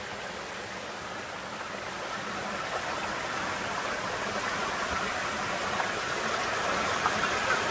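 A small rocky stream runs over stones and a little cascade, a steady rush of water. It grows gradually louder.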